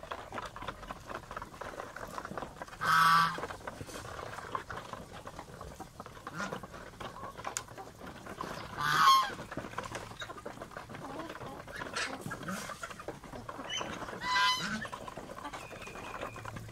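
Domestic geese honking three times, short loud honks spread several seconds apart, over a steady patter of bills dabbling and pecking in a shallow basin of water.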